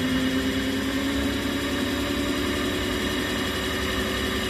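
Sun 504 distributor tester running with a Lucas D2A4 distributor spinning in it on the test bench: a steady mechanical hum with a few held tones.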